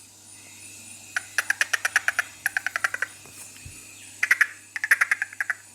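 A man imitating a dolphin with his mouth: rapid trains of high clicking chatter, one run of about ten clicks a second starting about a second in, then a second, more uneven run near the end.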